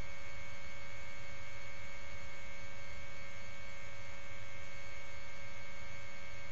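Steady electrical hum with constant high tones on the helicopter's radio and intercom audio between transmissions.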